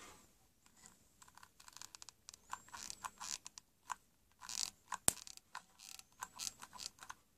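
Hand-held hot glue gun in use, its trigger and glue-stick feed mechanism giving a run of short clicks and creaks as glue is pushed out, with one sharp click about five seconds in.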